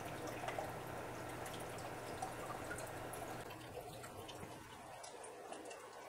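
Faint dripping and trickling of hydrosol distillate falling from a still's condenser spout into a glass oil-hydrosol separator. A low steady hum runs under it and fades out about halfway through.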